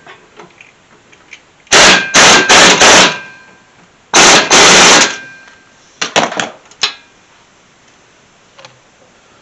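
Impact wrench hammering in bursts while loosening suspension nuts and bolts on the car's front end: four short bursts about two seconds in, then one longer burst a second later. A few sharp metallic clicks follow.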